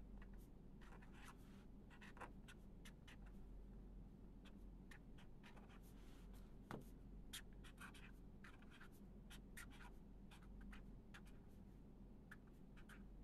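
Pen writing on paper: faint, irregular scratchy strokes, over a low steady hum.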